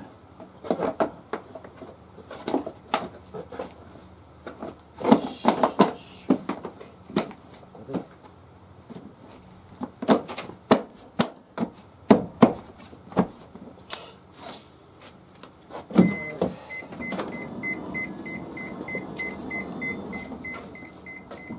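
Plastic step trim panel on a Toyota Alphard's sliding-door opening being pressed and knocked into its clips, a run of sharp clicks and knocks. About sixteen seconds in there is a thump, and the power sliding door runs shut on its newly replaced motor with a steady whir and a warning beeper chiming about three times a second. The door is working again after the motor swap.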